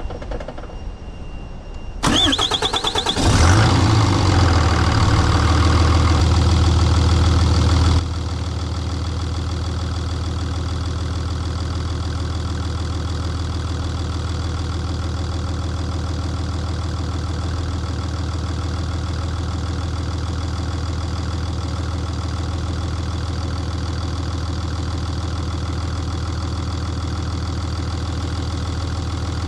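6.7-litre Cummins turbo-diesel cranking and catching about two seconds in, running loudly at first, then settling into a steady diesel idle.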